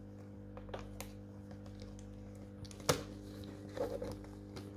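Small plastic clicks and rattles as a plastic plate is worked loose from the Anki Vector robot's chassis, with one sharper click about three seconds in, over a steady low hum.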